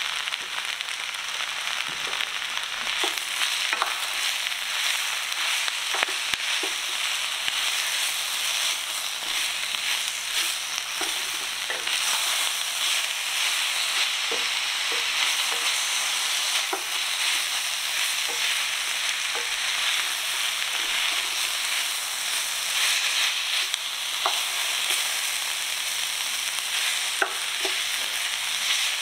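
Vegetables sizzling steadily in hot olive oil in an enamelled pot, stirred with a wooden spoon, with scattered light knocks as the stirring goes on.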